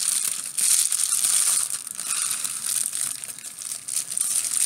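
Plastic packaging and bubble wrap crinkling and rustling in the hands as a small package is unwrapped. The crinkling is busiest in the first couple of seconds and eases off toward the end.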